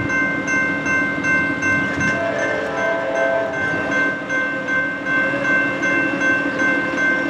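Railroad grade-crossing warning bell ringing in rapid repeated strokes as the gate arm comes down, with a train horn sounding once, from about two seconds in for just over a second, as the northbound train approaches.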